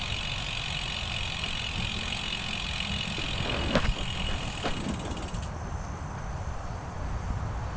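Road bicycle in motion: wind and road rumble with the rear hub's freewheel buzzing as the bike coasts, cutting off about five and a half seconds in; a couple of sharp clicks near the middle.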